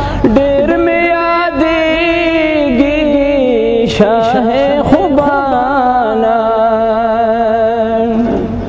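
A man's voice chanting an Islamic devotional recitation in long melismatic lines, holding notes with a wavering vibrato.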